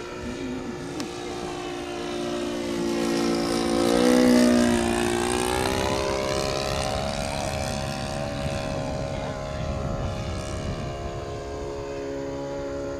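Engine and propeller of a radio-controlled Sopwith Pup scale model biplane flying past: the tone rises and gets louder to a peak about four seconds in, then drops in pitch as the plane passes and runs on fairly steady as it flies on.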